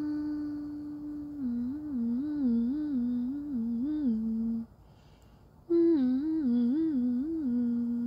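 A woman humming a tune with her lips closed: a long held note, then a phrase that sways back and forth between two notes, a pause of about a second, and a second similar phrase that settles on a held lower note.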